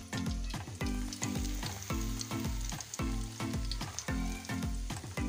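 Besan-battered stuffed green chillies sizzling as they fry in hot ghee in a frying pan. Background music with a steady beat of about two pulses a second plays underneath.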